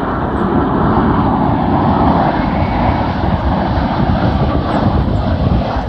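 Boeing 787 airliner on final approach with its landing gear down, its twin jet engines making a loud, steady noise that grows a little over the first couple of seconds as the aircraft draws closer.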